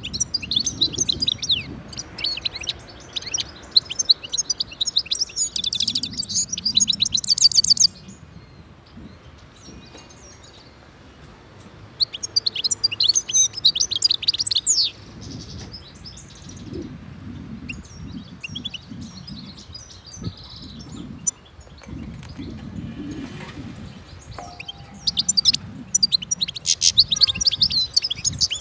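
European goldfinch singing in bouts of fast, high twittering. A long bout opens the clip, a shorter one comes about 12 seconds in, and another comes near the end.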